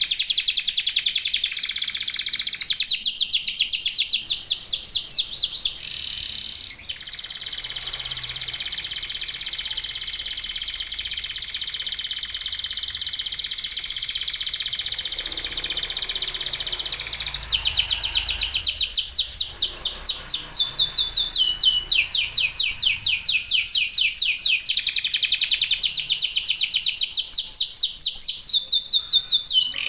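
Domestic canaries singing in rapid chattering trills. A long continuous rolling trill fills the middle stretch, and fast repeated-note trills come before and after it.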